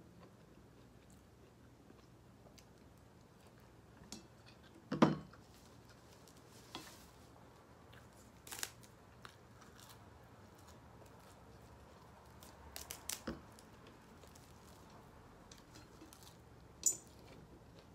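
A person eating quietly: chewing and handling food, with scattered small clicks and one louder knock about five seconds in.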